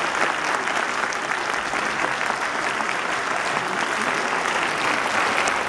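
An audience applauding steadily, a dense clatter of many hands clapping, the sustained ovation at the close of a band performance.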